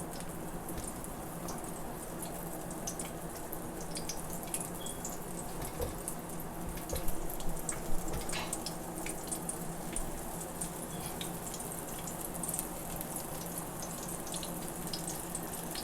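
Onion pakoras frying in hot oil on a low flame: a steady sizzle with scattered small crackles, and a couple of sharper pops about seven and eight seconds in.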